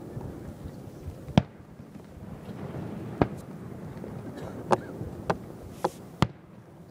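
Aerial fireworks shells bursting: six sharp bangs at uneven intervals, the last three coming quickly one after another, over a steady low background noise.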